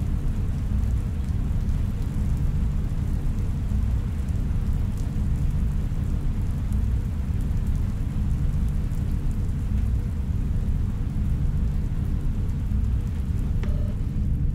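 Steady deep rumble with a soft hiss of rain and faint patter over it, an ambient soundscape of rain and a low city drone. A faint click and short electronic beep come near the end.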